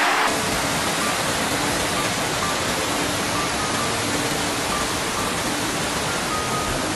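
Fast-flowing floodwater rushing past: a steady, even roar of water, with faint held musical tones underneath.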